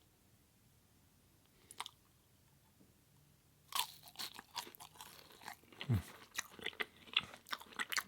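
Crunchy food bitten into and chewed close to the microphone: after a near-quiet first half, a sharp crunching bite about four seconds in, followed by a run of crisp chewing crunches.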